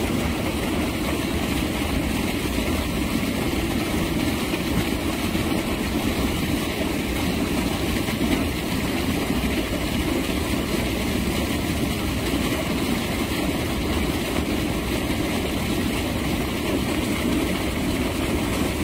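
Water gushing steadily from an outfall at a seawall into the sea, a constant rushing sound that does not let up.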